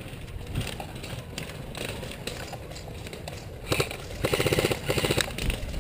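Airsoft gun firing on full auto: a short burst, then a longer rapid burst of about a second near the end, over low rumble from handling and wind on the microphone.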